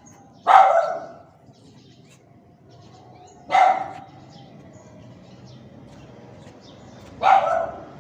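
A dog barking: three single loud barks, each about three and a half seconds apart.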